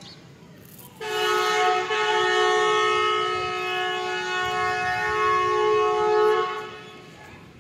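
Passenger-train locomotive horn sounding one long blast of about five and a half seconds on two close notes, the signal before the train pulls out of the station.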